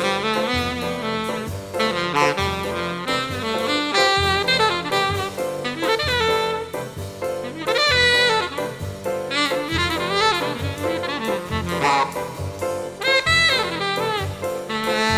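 Jazz music, with a saxophone playing a bending, gliding melody over a drum kit.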